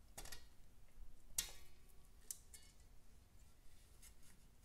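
A few small metallic clicks, the sharpest about a second and a half in, as a coil return spring is unhooked with pliers from a motorcycle prop stand.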